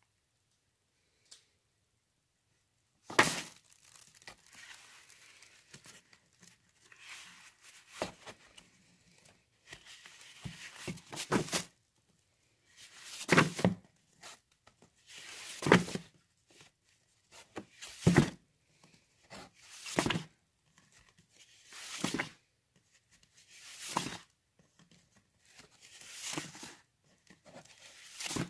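Comic books being flipped through and shuffled one by one in a plastic tote, paper rustling and sliding in a swish about every two seconds after a quiet first few seconds.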